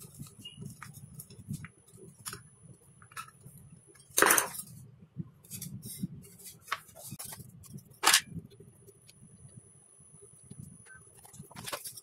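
Workbench handling noise: a screwdriver turning a screw into a hardboard panel, then the panel with its aluminium heat sink being lifted and set down on a tiled floor. Small clicks and taps throughout, with three louder knocks or scrapes, the first and loudest about four seconds in, then one about eight seconds in and one near the end.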